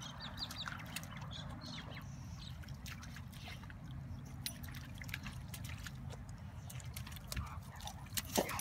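Boxer dog splashing in a shallow puddle, water sloshing and dripping in small scattered splashes as he noses and paws in it, over a steady low rumble. A few louder splashes come near the end as he steps out.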